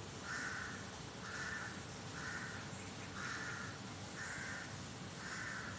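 A crow cawing six times in a row, one short caw about every second.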